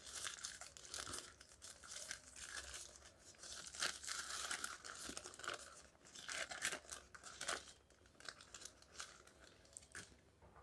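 Paper burger wrapper being unfolded and crinkled by hand: soft, irregular rustling and crackling that thins out near the end.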